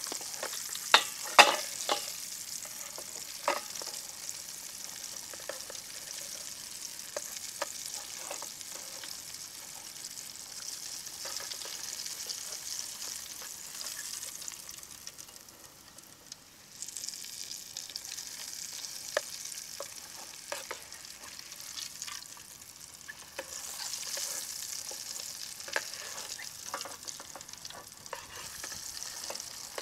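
Egg-and-flour-coated pork chop deep-frying in peanut oil in an aluminium pot, a steady sizzling hiss, with metal tongs clicking and scraping against the pot as the chop is turned. The sizzle falls away for about a second just past halfway, then comes back.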